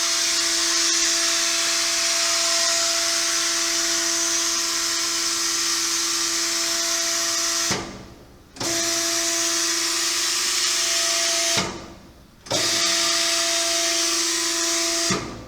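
ESAB 3500 hydraulic welding positioner running as its table is driven, a steady whine over a hiss. It stops briefly about eight seconds in and again about twelve seconds in, then cuts off near the end as the movement reaches its limit.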